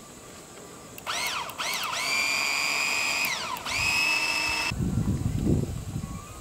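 A small high-speed electric motor whining: two quick spin-ups about a second in, then a run at a steady pitch, a short dip, and a second steady run that cuts off suddenly. Low, irregular knocking and rumbling follow near the end.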